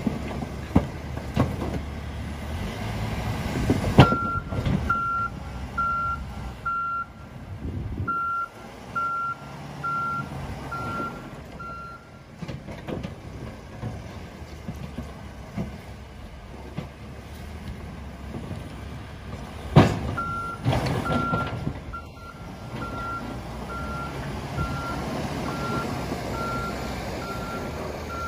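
A work vehicle's reversing alarm beeping about once a second over a running engine, in two runs. Each run starts just after a sharp bang, the loudest sounds here.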